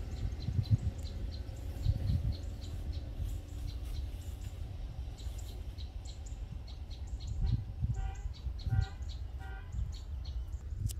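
Small birds chirping in rapid, repeated short notes over a low rumble. Near the end, a lower pitched call sounds three times, a little under a second apart.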